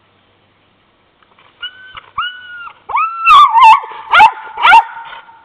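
A dog whining and yipping, stirred up by a possum up a tree: two short held whines, then louder, sharply rising yips and yelps from about three seconds in.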